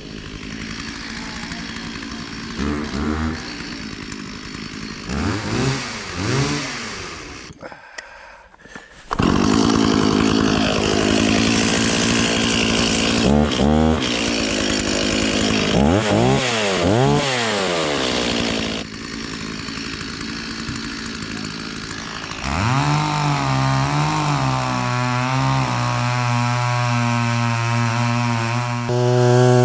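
Gas chainsaw revved up and down several times, then held at full throttle for about ten seconds from about nine seconds in, as when cutting into a trunk. It drops back, then runs steadily with a few small rev changes near the end.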